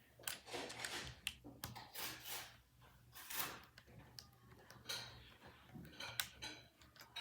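Tiny plastic Nanoblock bricks being handled: scattered light clicks and rustling as pieces are picked out and pressed together.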